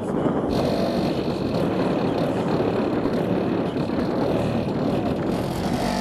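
Two Pioneer TS-W121SPL 12-inch subwoofers playing bass-heavy music loudly inside a car, heard from outside the car as a steady, dense low rumble.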